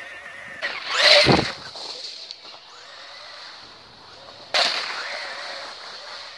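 Traxxas Slash 4x4 electric RC truck driving past close to the ground: its motor whine and tyre noise swell loudly about a second in and then fade. A second sudden burst of the same motor and tyre noise starts about four and a half seconds in and dies away slowly.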